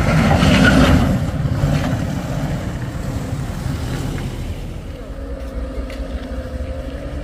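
Vehicle engine running with a heavy low drone, louder for the first second or so, then settling into a steadier hum.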